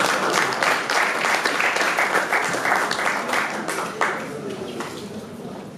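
Audience applauding, the clapping thinning and dying away over the last couple of seconds.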